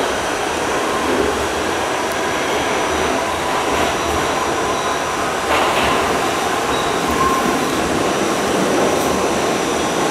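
R68 subway car running through the tunnel, heard from inside the car: a steady, loud rumble and hiss of steel wheels on the rails, with a faint whine.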